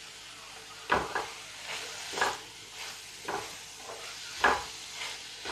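Wooden spatula stirring and scraping vegetables and soya chunks around a frying pan, starting about a second in with a stroke roughly every half second, over a light sizzle.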